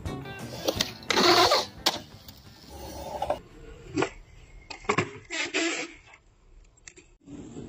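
Skateboard on concrete: urethane wheels rolling, with several sharp clacks as the board's tail pops and the deck lands on a concrete bump.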